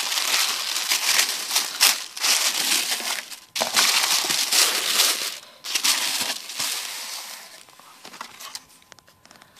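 Packaging crinkling and rustling as a box is unpacked by hand, in dense bursts that die away over the last couple of seconds.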